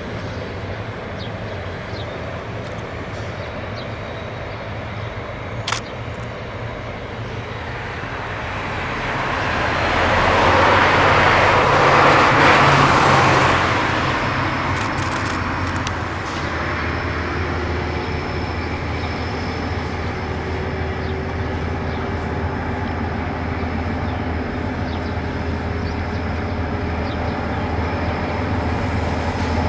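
ÖBB class 2143 diesel-hydraulic locomotive running steadily under power as it hauls its train past, its deep engine note strengthening near the end. A car passes on the road between about 8 and 15 seconds in, a rising and falling rush of tyre and engine noise that is the loudest sound.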